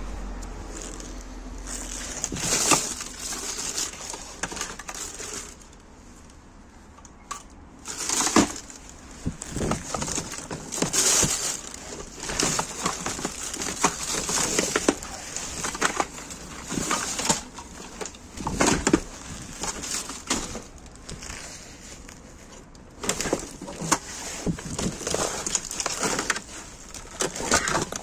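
Rummaging through dumped junk by hand: plastic bags crinkling and rustling, with irregular knocks and clatters of hard plastic items such as helmets being shifted, and a couple of quieter pauses.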